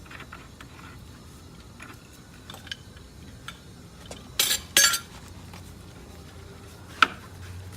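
Metal-on-metal clinks of a wrench working a gas meter's swivel nut and pipe fittings: scattered light clicks, two louder short clanks about four and a half seconds in, and one sharp ringing clink near the end.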